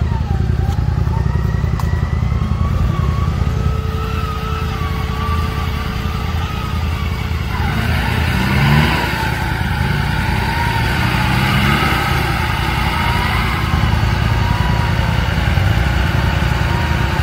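Off-road vehicle engine running steadily, with the revs rising briefly a few times.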